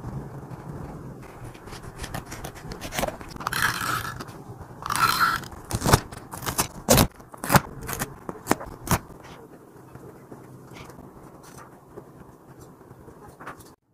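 Paper and stationery handling during journal-making: two short scraping rustles about three and a half and five seconds in, then a run of sharp taps and clicks, tapering off to quieter handling over a low steady hum.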